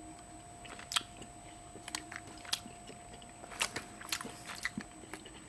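Biting and chewing pieces of a Kinder Surprise egg's chocolate shell: a string of short, crisp crunches at irregular intervals.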